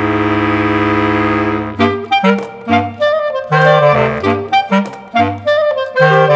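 Background music: a held chord for about the first second and a half, then a lively run of short notes over a moving bass line.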